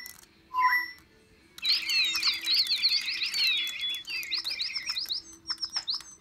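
Several DigiBirds toy birds chirping together through their small speakers: a short whistled note, a pause, then from about a second and a half in a dense, overlapping chorus of quick rising chirps that goes on in fast repeated runs.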